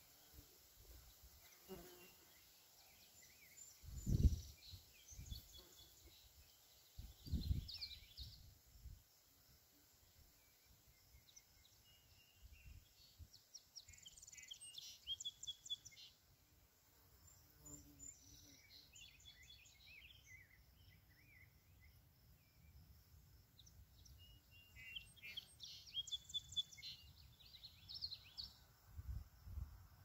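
Faint songbird song: short chirping phrases that come back every few seconds, four or five times. Brief gusts of wind rumble on the microphone about 4 and 7 seconds in and again near the end.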